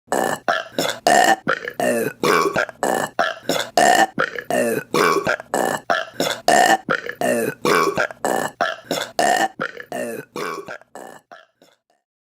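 Burps chopped into short, evenly spaced repeats, about three a second, in a looping pattern that fades out near the end.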